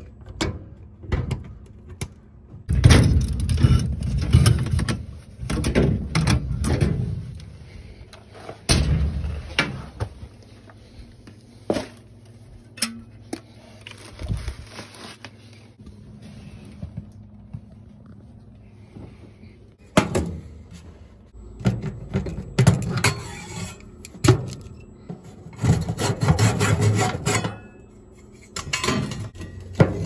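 Handling noise from working on a gas furnace: irregular rubbing, scraping and knocks of hands and tools on its parts, coming in clusters with quieter gaps between, over a low steady hum.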